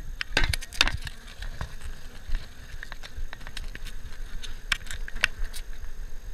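Package of bees being shaken and knocked to pour them into the hive: repeated sharp taps and rattles from the screened shipping box, bunched about half a second in and again around five seconds.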